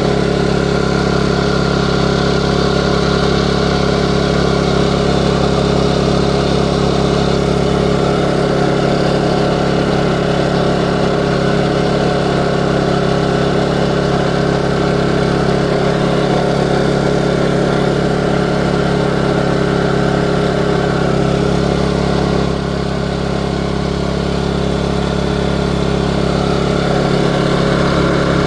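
Westinghouse iGen2550 inverter generator running steadily with no load and eco mode switched off, so the engine holds a fixed higher speed; the level dips slightly about 22 seconds in.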